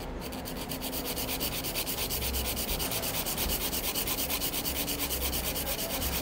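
Hand nail file rasping over a gel-coated nail in quick, even back-and-forth strokes, several a second, filing down the last high spot at the apex.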